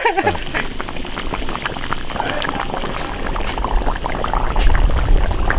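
Red-braised beef ribs bubbling in a pot of sauce, a steady sputtering boil with many small pops. A low rumble grows stronger about four seconds in.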